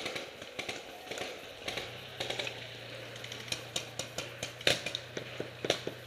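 Irregular crunching and crackling of dry leaf litter underfoot as a paintball player moves through the woods, with a couple of sharp snaps near the end. A low steady hum starts about two seconds in.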